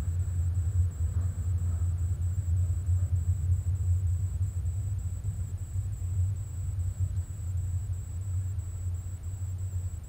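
Hyundai Coupé 1.6 16-valve four-cylinder engine running at a steady, even pace, heard as a low, constant rumble.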